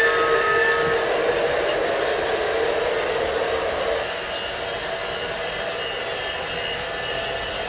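Battery-powered G-scale toy train running on plastic track: a steady whir of the motor and wheels, with the last of its whistle sound effect fading in the first second. About four seconds in it drops to a quieter, more distant running of several toy trains circling together.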